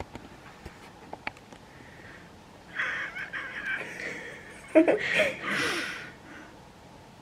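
Stifled laughter: breathy huffs and wheezes pushed out through the nose, then a short voiced giggle about five seconds in, the loudest part.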